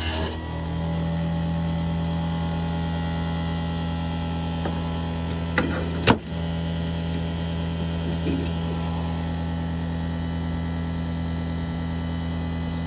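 Electric chain sharpener's grinding-wheel motor running steadily with a low hum, no tooth being ground, and one sharp click about six seconds in.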